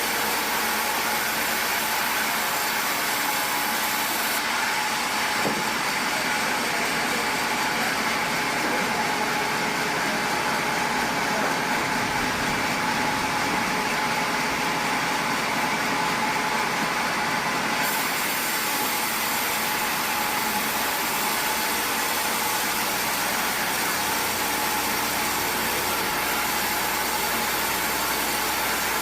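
Sawmill machinery running steadily: an even mechanical noise with a faint steady hum, with no clear starts or stops.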